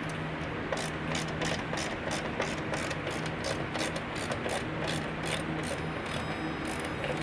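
Ratcheting hand screwdriver clicking rapidly, about four clicks a second, as a screw is turned in by hand, over a steady low hum.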